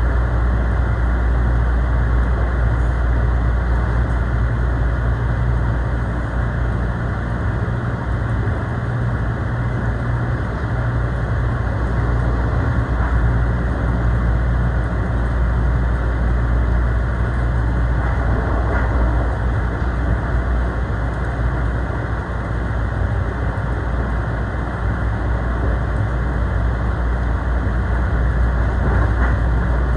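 Commuter train running between stations, heard from inside the passenger car: a steady low rumble with wheel and track noise that barely changes in level.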